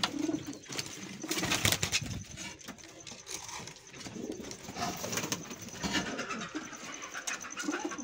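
Domestic pigeons cooing in a loft, with a few knocks and rustles from hands in a wooden nest box about a second and a half in.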